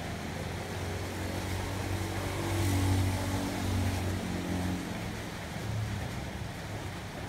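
A low engine hum from a motor vehicle in the background, swelling louder about two to three seconds in and then easing off.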